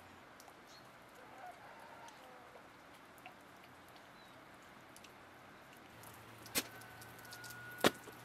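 Quiet outdoor ambience with faint, scattered bird calls. Near the end come two sharp clicks about a second apart, with a thin steady whistle-like tone running through the second.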